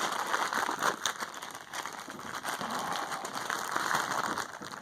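Blind-box figure packaging being opened by hand: a steady crinkling and rustling with small crackles.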